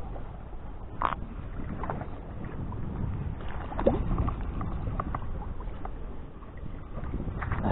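Wind rumbling on the microphone over lapping sea water, with a small splash as a fish is dropped back into the sea about four seconds in.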